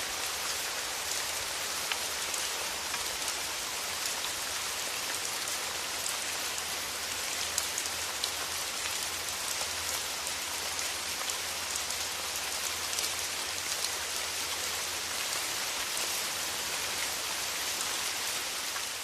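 Steady rain falling, an even hiss with many small, sharp drips and splashes of individual drops among it.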